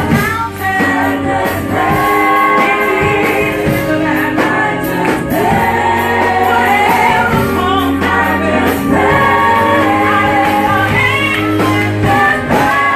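Gospel praise-and-worship music: a choir and singers holding long notes together over a band with a steady bass line.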